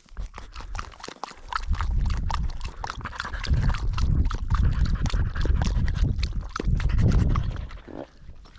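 Brittany dogs drinking from a squeeze water bottle: quick wet laps and slurps in a rapid run, over a low rumbling noise that swells in the middle and fades near the end.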